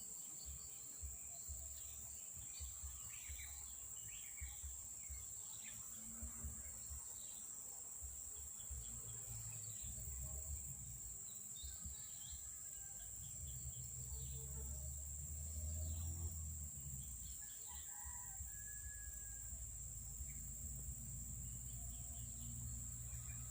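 Faint outdoor ambience: a steady high insect drone, with scattered short bird calls and a low rumble that grows stronger in the second half.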